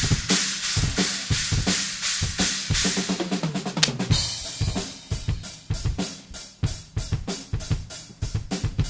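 Drum-heavy background music: a fast, busy drum-kit beat of bass drum and snare, with a hissy upper layer that drops away about four seconds in while the drumming carries on.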